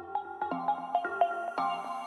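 Background electronic music: quick repeated pitched notes, several a second.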